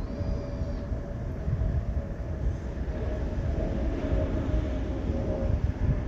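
Amagi Railway diesel railcar passing over a level crossing, its low rumble under the crossing's warning bell ringing steadily.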